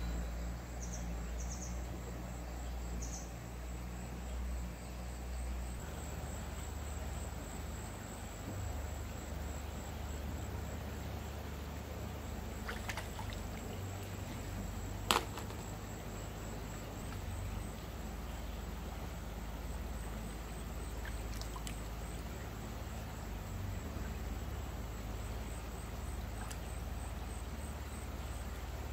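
Shallow stream water trickling steadily over a low rumble, with one sharp click about halfway through.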